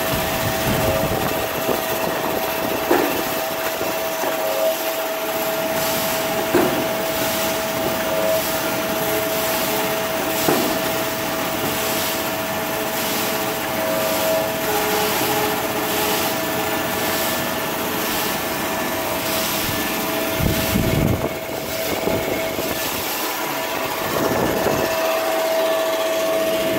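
Jumbo paper roll slitting machine running: a steady motor whine over an even hiss, with a short knock every few seconds.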